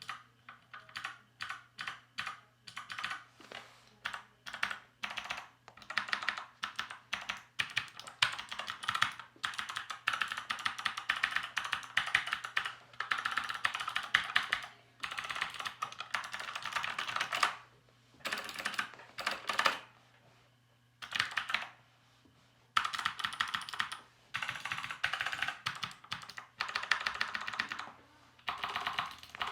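Typing on a Keychron C2 mechanical keyboard with NovelKeys Sherbet switches, some of them lubed and some not. It starts with separate key presses, about three a second, then moves to runs of fast typing broken by short pauses.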